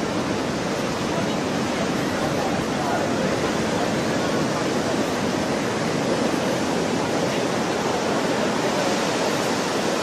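Steady rushing noise of tsunami surf: a broad front of whitewater breaking and surging up the beach.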